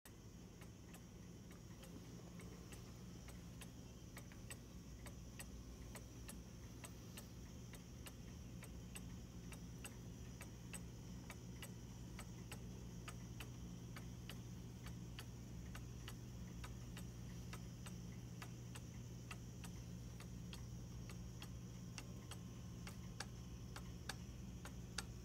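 Antique Black Forest eight-day train-style cuckoo clock ticking steadily, its ticks evenly spaced over a low, steady hum. A few louder clicks come near the end.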